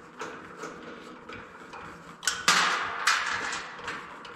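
Screwdriver working a screw out of a shop fan's metal housing: a run of irregular small clicks and scrapes of metal on metal, loudest about two seconds in.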